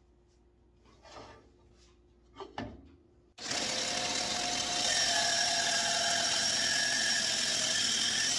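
Shopsmith bandsaw with a sharp half-inch blade cutting through a thick cherry blank. The saw noise starts abruptly about three and a half seconds in and runs loud and steady with a high whine; before that there are only a couple of faint knocks from handling the wood.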